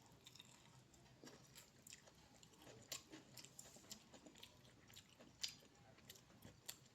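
A person chewing food: soft, irregular mouth clicks and smacks.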